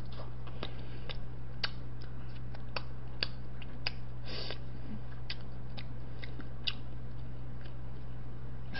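A person chewing a mouthful of boiled chicken with wet lip-smacking: irregular soft clicks, a few a second, over a steady low hum.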